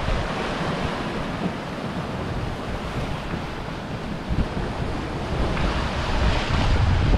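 Wash of waves and rushing sea water around a trimaran sailing under way, with wind buffeting the microphone in a low gusty rumble. The hiss of water swells near the end.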